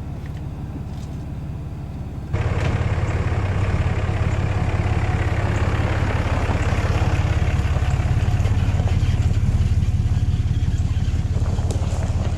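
Ram pickup truck running, a steady low engine drone with road noise, which jumps abruptly louder about two seconds in.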